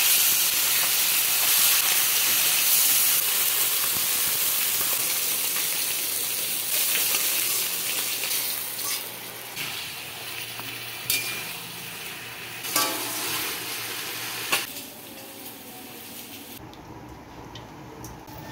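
Fish and then brinjal pieces sizzling in hot oil in a metal kadai as they are turned with a spatula. The sizzle is loud at first and fades over the first half, and three sharp knocks of the spatula against the pan come around the middle.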